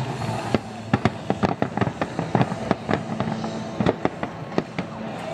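Fireworks display going off: a rapid, irregular string of sharp bangs and crackling reports over a steady low rumble.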